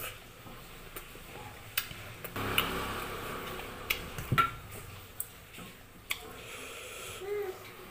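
Eating sounds at a table: scattered sharp clicks and smacks of chewing and of dishes and a spoon being handled, with a longer spell of rustly noise about two and a half seconds in.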